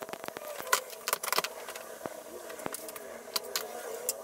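Hand tools and small metal parts being handled, giving scattered clicks and jangling clinks, with a cluster about a second in and another past the three-second mark.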